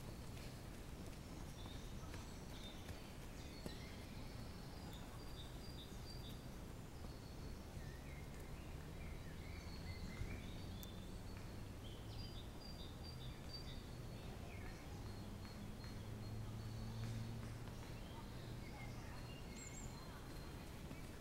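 Woodland birds singing and calling, short chirps and whistled notes throughout, over a faint low steady hum. Near the end, runners' footsteps on the dirt trail come in faintly.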